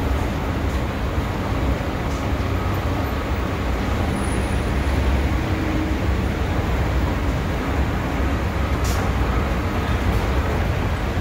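Steady low rumble of a moving escalator mixed with city traffic noise, with no distinct events apart from a faint click about nine seconds in.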